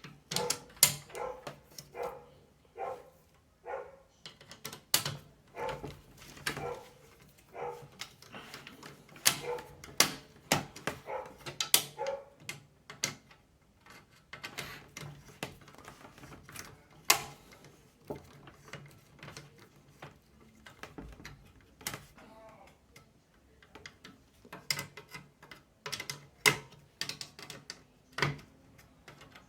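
Irregular sharp clicks and taps of screws being fitted against a PC case and plastic case-fan frame as new case fans are screwed in.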